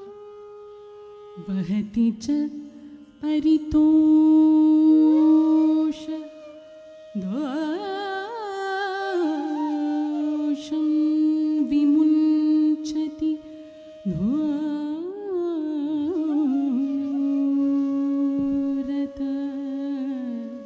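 Carnatic classical singing: a solo voice holding long notes with sliding, wavering ornaments over a steady drone, with a few scattered sharp strokes.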